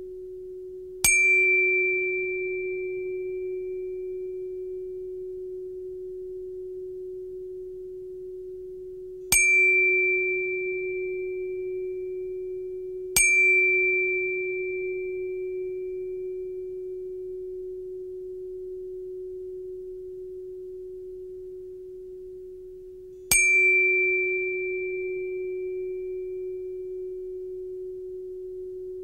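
Soundtrack of one steady, pure held tone that runs on throughout. Four sudden struck chime-like tones sound over it, about 1, 9, 13 and 23 seconds in. Each rings high and fades away over three or four seconds.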